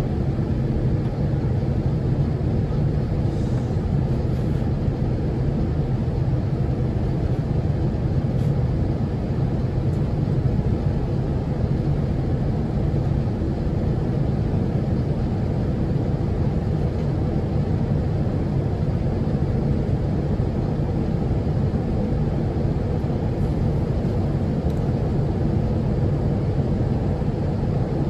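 Cabin noise of an Airbus A350-900 in flight: a steady, low drone of engines and rushing air, heard from a forward seat.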